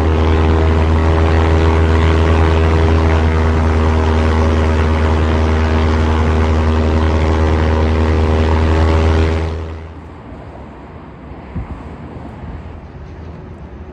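Light propeller aircraft engine running at a steady speed with a deep, even drone, stopping about ten seconds in and leaving a much quieter background noise.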